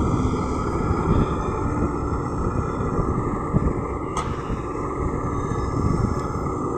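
LiuGong crawler excavator's diesel engine running steadily under load as the machine swings and digs, with a faint steady hum and a single sharp click about four seconds in.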